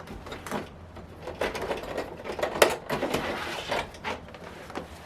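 Light clicks and knocks of a pair of calipers being picked up and handled on a workbench, the sharpest click about two and a half seconds in.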